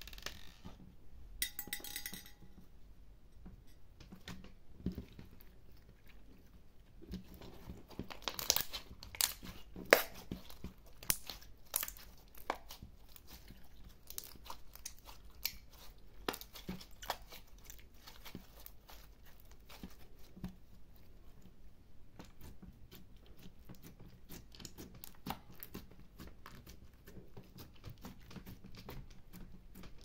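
Glittery clear slime with small beads mixed in being stretched, squeezed and pressed by hand: a run of small sticky clicks and pops, busiest and loudest about eight to ten seconds in.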